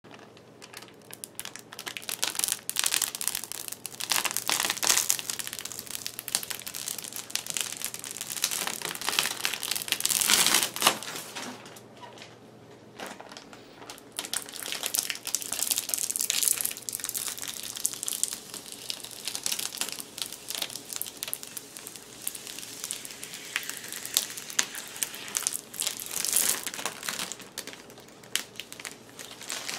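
Thin clear plastic bag crinkling and rustling as hands pull it off a 3D printer, in uneven bursts with short lulls, loudest about ten seconds in.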